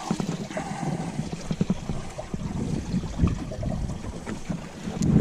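Water lapping and splashing against a boat's hull, with wind buffeting the microphone, the wind rumble growing louder near the end.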